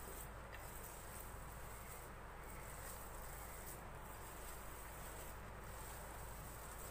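Faint steady room tone: a low hum and hiss, with a thin high whine running throughout.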